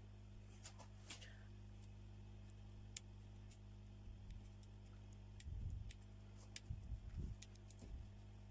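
Faint, scattered small clicks and a few soft knocks from handling a phone and small repair tools, over a steady low electrical hum.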